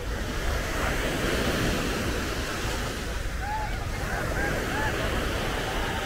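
Small sea waves breaking and washing up on a sandy beach, a steady rush of surf that swells about a second in, with wind rumbling on the microphone. Faint far-off voices of people on the beach come through about halfway through.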